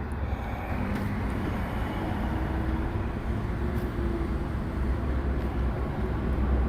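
A vehicle driving: a steady deep rumble of engine and road noise with a faint hum.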